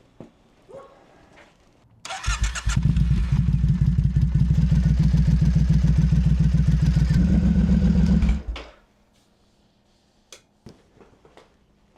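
2012 Triumph Scrambler 900's air-cooled parallel-twin engine is turned over on the starter and catches about two seconds in. It idles for about six seconds, then is switched off. It is run briefly on fresh oil to circulate it before the level is checked.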